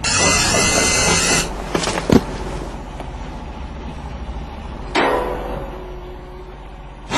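A power tool runs with a high whine for about a second and a half, then cuts out. A sharp knock follows about two seconds in, and a loud impact comes about five seconds in and dies away slowly.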